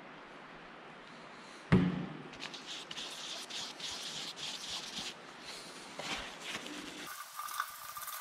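One sharp knock about two seconds in, then a paper shop wipe crinkling and rustling as gloved hands fold it over a puddle of ATF. Near the end, the ATF-soaked wipe rubs around inside an aluminium engine block's cylinder bore with a faint squeak.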